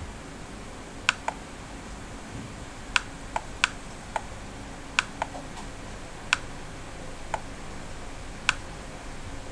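Computer mouse clicking: about a dozen sharp, single clicks at uneven intervals, some in quick pairs, over a steady low hum.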